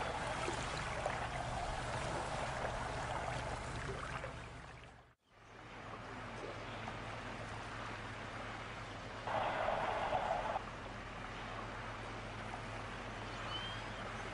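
Steady wash of moving water. It fades out about five seconds in and comes back, with a brief louder hiss near ten seconds.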